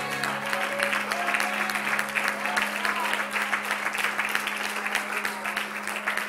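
Congregation applauding with dense, steady hand-clapping as the last notes of the song's backing music fade out at the start, over a steady low hum.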